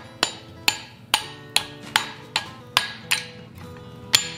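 Hand-hammer blows driving a hot steel bar down onto a cutoff hardy in the anvil to cut it through. The sharp, ringing strikes come about two a second, about nine in all, with a short pause near the end.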